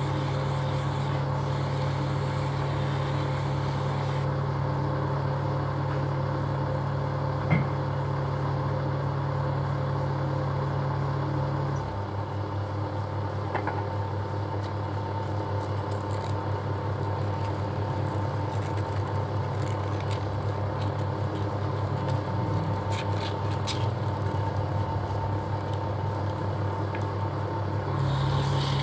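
Metal lathe running steadily, its motor and spinning three-jaw chuck giving a low hum during a polishing operation. The hum changes character about twelve seconds in and again near the end, with one short click early in the first part.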